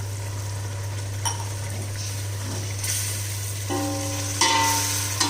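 Mutton stock and water going into a pan of frying masala and mutton, sizzling with metal clinks from the vessel, over a steady low hum. Louder bursts of sizzle come near the end.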